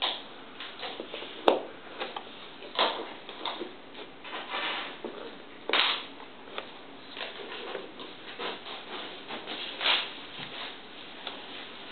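Jigsaw puzzle pieces being handled and fitted: irregular clicks, taps and short rubbing scrapes, the sharpest click about a second and a half in.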